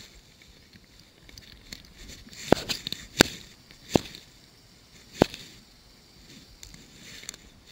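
Four sharp clicks and knocks, roughly a second apart, the loudest about three seconds in: handling noise of fly-fishing tackle as line is stripped from the fly reel and the rod is readied to cast.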